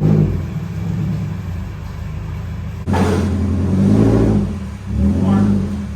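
Car engine running with a loud exhaust through a broken exhaust pipe, steady at first, then changing abruptly about halfway and swelling louder twice as it is revved.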